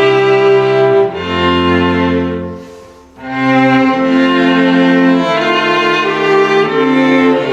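Background music with long held string chords that change every second or two, fading briefly about three seconds in before coming back.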